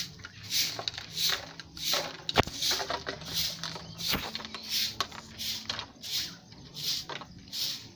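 A short-handled broom sweeping a bare dirt yard: rhythmic scratchy swishes about two a second, with a couple of sharper knocks partway through.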